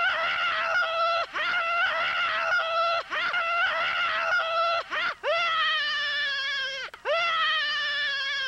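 Loud, high-pitched wolf-like howling: about five long held cries, each with a slight waver and broken by a brief gap. The last two sweep up in pitch at their start and are held longer.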